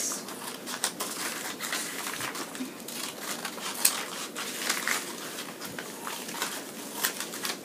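Scissors snipping through a folded sheet of paper, a few short cuts, then the paper rustling and crinkling as it is unfolded and smoothed flat.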